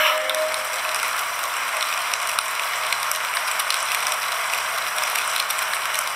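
Rain falling in a steady patter with scattered individual drop ticks.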